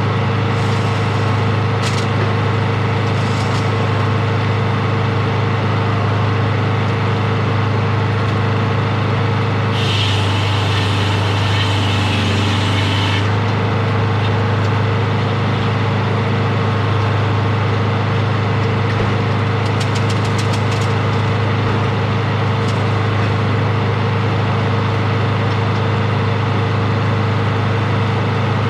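Engine of a hydraulic circle sawmill running steadily at a constant speed, with a brief hiss lasting about three seconds, about ten seconds in.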